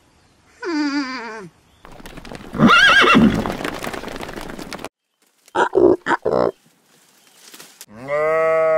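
Horse whinnying: a loud, drawn-out neigh with a quavering pitch, followed by a few short sounds. A short animal call comes about a second in, and a sheep starts bleating near the end.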